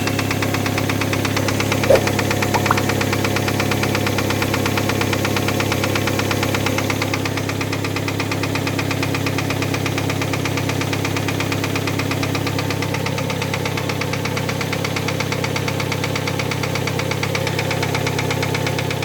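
A 2.0-litre four-cylinder engine idling with a fast, even knock from the top of the engine at cylinder one. The owner takes it for an exhaust valve held off its seat in the head by a foreign body.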